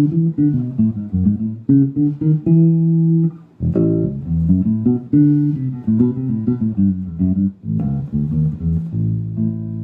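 Headless electric bass guitar with its fretted neck fitted, played as a line of plucked notes with brief pauses about three and a half and seven and a half seconds in.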